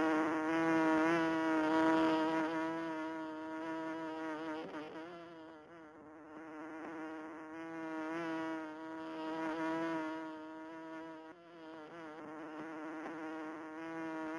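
A bee buzzing in flight: one steady, pitched hum that swells and fades in loudness, dipping about halfway through and rising again.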